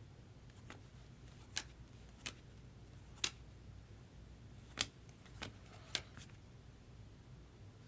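About seven light, irregularly spaced clicks and taps of trading cards being handled and set down, the sharpest a little over three seconds in, over a faint low hum.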